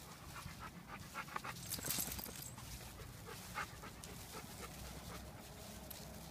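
Dog panting and sniffing in runs of quick short puffs, with a louder scratchy burst about two seconds in.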